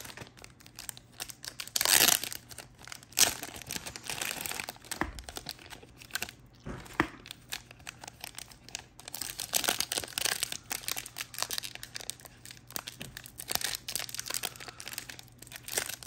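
Foil-topped wrapper of an Absolute football-card rack pack being crinkled and torn open by hand: irregular crinkling with sharper tearing bursts, the loudest about two and three seconds in.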